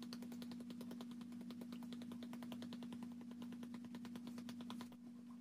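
Plastic spice shaker of paprika being shaken over fish fillets, making a rapid run of faint ticks that stops near the end.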